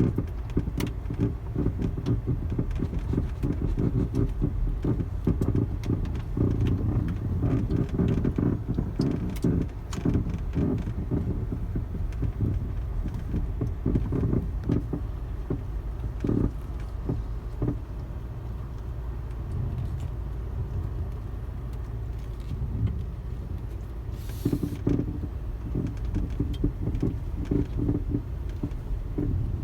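Volkswagen Passat B6 driven slowly over bumps: steady low road rumble with many irregular knocks and crunches from the front suspension, which come and go with the bumps. The owner is unsure whether the crunching comes from the steering rack, a CV joint or a strut top bearing.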